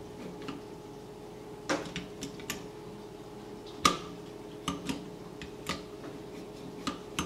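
Bob Long MVP pump paintball marker being worked after reassembly, the pump handle slid back and forth to test the action. It gives about ten irregular light metal clicks and clacks, the loudest about four seconds in.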